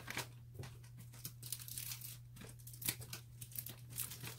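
Scrapbooking paper and supplies being handled: light crinkling and rustling with scattered small clicks, over a faint steady low hum.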